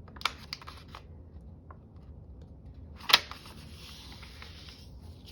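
Paper being handled and folded: light rustles and clicks, one sharp snap about three seconds in, then a couple of seconds of paper sliding and rustling.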